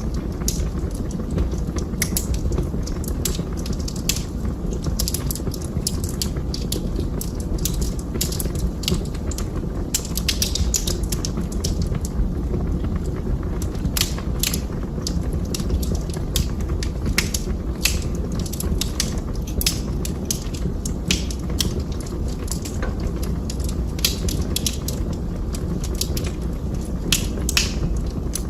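Wood fire burning in a fireplace: a steady low rumble with frequent, irregular sharp crackles and pops.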